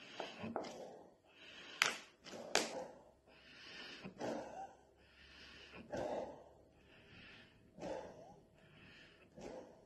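A person blowing hard through a sock-covered plastic bottle dipped in washing-up-liquid solution, making a bubble snake of foam. Hissy out-breaths through the sock alternate with quick gasping in-breaths, four or five times, with two sharp clicks about two seconds in.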